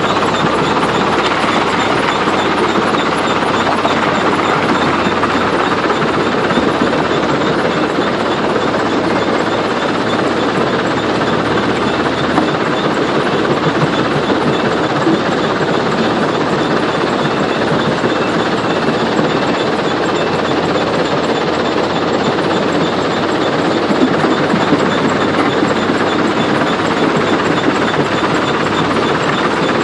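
Heavy construction machinery at a stone-crushing site running steadily, with a dense continuous mechanical rattle and clatter.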